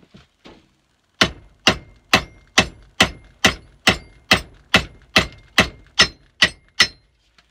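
Hammer driving a galvanised steel ring wedge into the top of a new wooden handle set in a splitting maul's head: fourteen sharp metallic strikes, a little more than two a second, each with a short ring. They start about a second in and stop shortly before the end.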